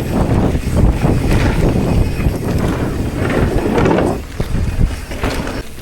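Wind buffeting the microphone of a mountain bike being ridden fast, mixed with tyre and bike rattle noise in irregular surges.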